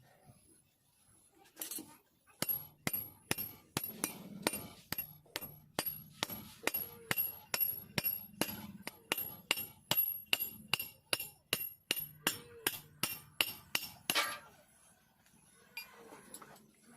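Hammer striking metal in a long run of quick, evenly spaced ringing blows, about three a second. The blows stop a few seconds before the end.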